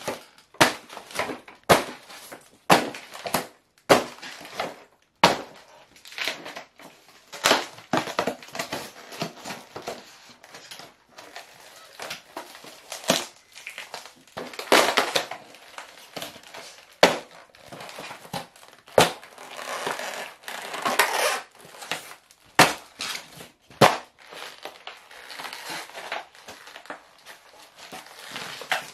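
Foam radio-controlled model aeroplane cracking and crunching under stiletto heels stamping on it: a long irregular run of sharp cracks and snaps, with a few longer grinding crunches partway through.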